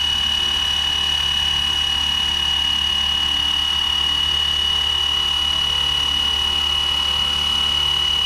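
FlyWing FW450 V3 RC helicopter's electric motor and rotors running steadily in a low hover at mid throttle: a constant high whine with an even rotor hum beneath it.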